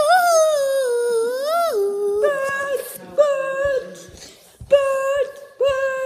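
A child humming wordless notes close to the microphone: one long note sliding up and down, then four short held notes at the same pitch.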